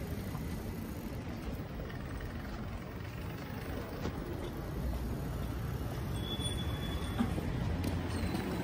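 Steady low rumble of riding a bicycle along a paved street: wind on the microphone mixed with tyre noise.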